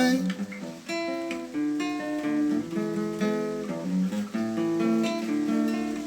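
Instrumental music of plucked string notes, picked one after another and left to ring.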